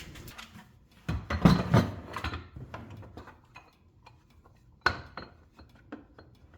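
Small screws and hard plastic parts of a shop vac being handled: a cluster of clattering knocks about a second in, then scattered light clicks and clinks, with one sharper click about five seconds in.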